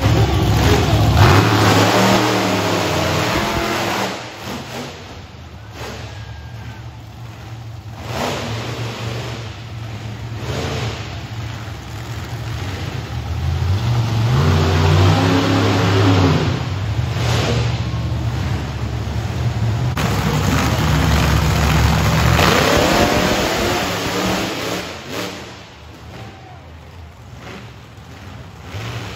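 Monster truck engines revving hard and accelerating, the pitch climbing and falling with the throttle in repeated surges. The surges are loudest in the first few seconds, come back through the middle, and ease near the end.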